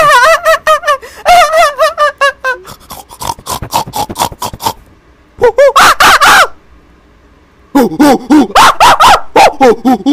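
A young man's voice putting on a woman's laugh: a high, warbling giggle and quick breathy titters, then after a short pause loud, rapid, animal-like cackling in runs of short bursts.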